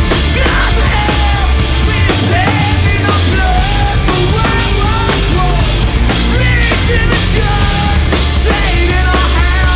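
A live punk rock band playing loudly, with distorted guitars, bass and drums. A pitched line slides up and down above the band.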